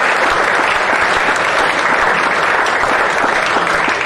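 An audience applauding: steady, dense clapping from many people.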